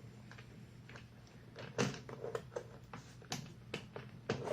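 Plastic top housing of an air fryer being pulled up off its clips: a scattered series of sharp plastic clicks and knocks, the loudest about two seconds in and again near the end.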